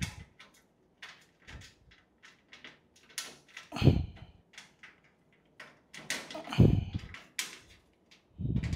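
Metal drawer front being fitted onto a filing-cabinet drawer: a run of light metal clicks and taps, with three heavier knocks, one near the middle, one about two-thirds in and one near the end.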